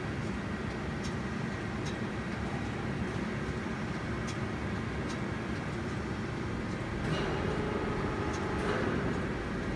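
JUNG JF520 surface grinder running, a steady mechanical hum with faint clicks about once a second, swelling a little louder about seven seconds in.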